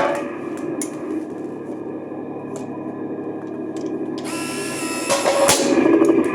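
1/16 scale KV-1 RC tank's small electric motors and gearing whirring steadily with a few light clicks. About four seconds in, a louder burst of whirring ends in a sharp crack as the BB gun fires.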